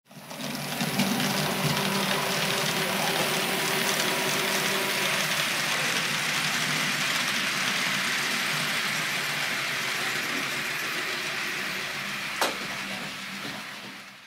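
Roco TT-scale model train running on the layout: a steady electric-motor hum and wheels rolling on the track, with a single sharp click about twelve seconds in.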